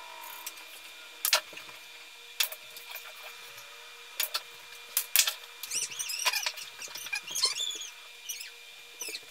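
Pool balls clicking, shot after shot, sped up eight times: sharp clicks about every second, some in close pairs, with fast high chirps over the second half.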